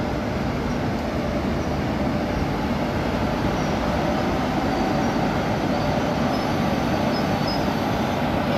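Indian Railways WAP-4 electric locomotive hauling a passenger train past on the rails, a steady rumble of wheels and running gear that grows slightly louder as the locomotive comes alongside.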